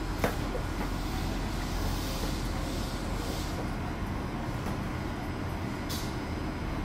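Toei 5300 series subway train giving a steady low rumble and hum with a faint hiss of air, without any rising or falling motor whine, and a single click about six seconds in.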